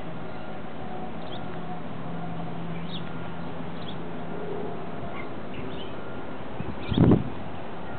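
Small birds chirping, short high notes every second or so, over a steady background hiss and low hum. A single low thump near the end is the loudest sound.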